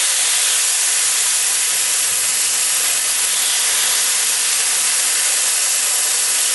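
Oxy-acetylene cutting torch hissing steadily as it cuts through steel.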